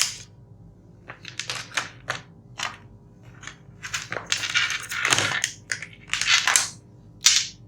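Handling noise on a workbench: a string of sharp clicks and crinkling, crackling rustles, growing denser and louder about halfway through, as the air-conditioner circuit board and its wiring are handled.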